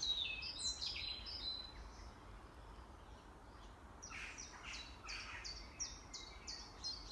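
Small songbirds singing: a quick burst of high notes, then after a lull a run of short, high, downward-slurred notes repeated about three times a second.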